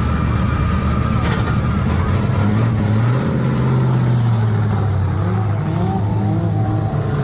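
Drift cars' engines running and revving during practice: a steady engine drone whose note rises and holds for a couple of seconds in the middle.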